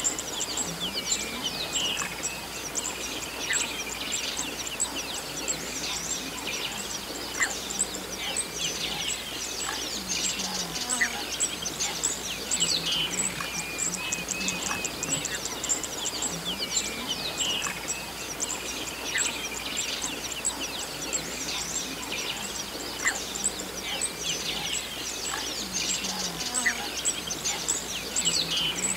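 A dense, continuous chorus of birds chirping and calling, many overlapping high calls with occasional sharper notes standing out.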